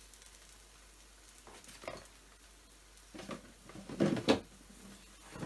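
Soft knocks and rattles of kitchen items being handled, in three short clusters, the loudest about four seconds in.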